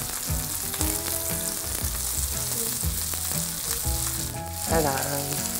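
Battered jeon (Korean pan-fried pancakes) frying in oil in a round pan, a steady sizzle.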